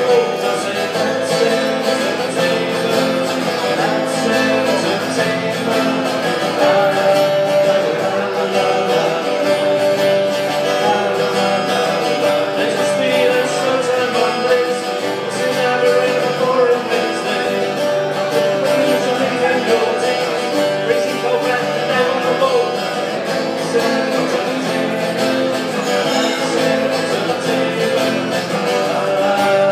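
Two acoustic guitars played together live as a duet, a continuous stretch of music.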